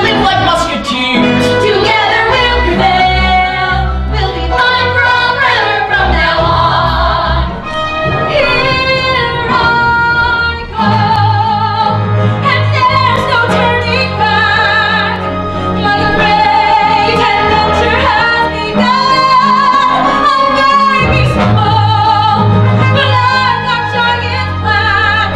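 A woman singing a musical-theatre song with vibrato over instrumental accompaniment.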